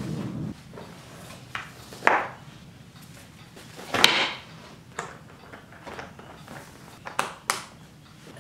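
Paper sheets rustling and sliding into a hard black portfolio case, with scattered knocks and a few sharp clicks from the case being handled and closed. The loudest is a sharp click with a rustle about four seconds in.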